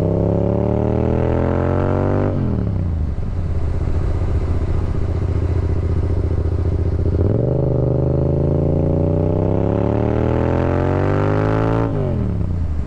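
Yamaha MT-07's parallel-twin engine through an aftermarket M4 exhaust, its revs climbing under acceleration, then dropping sharply about two seconds in and falling away as it slows. It runs low and steady for a few seconds, climbs again for about five seconds, and drops sharply once more near the end.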